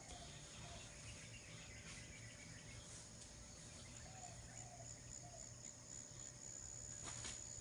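Faint tropical outdoor ambience: a steady high-pitched insect trill, with a few short faint calls in the background and a sharp click near the end.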